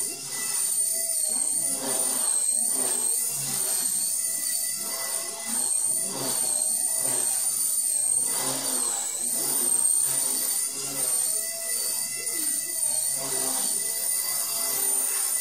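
Brushless-converted Blade Nano CP X micro collective-pitch RC helicopter in flight: a high-pitched motor and rotor whine that wavers in pitch as it manoeuvres.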